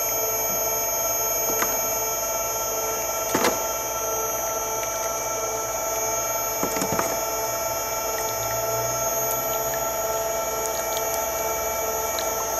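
Screw oil press running steadily at about half speed while crushing lesquerella seed: a constant mechanical hum with several held tones, and a few light knocks about one and a half, three and a half and seven seconds in.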